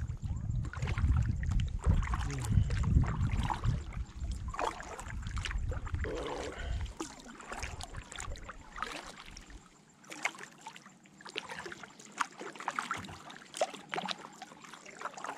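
Kayak paddling: the paddle blades dip and pull through the water with irregular splashes and drips, and water laps at the plastic hull. A low rumble sits under the first half and then dies away.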